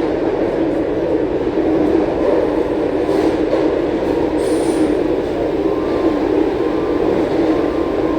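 Taipei Metro C341 electric multiple unit running between stations, a steady loud rumble of wheels and running gear with a constant low hum. A brief high thin squeal comes about four and a half seconds in.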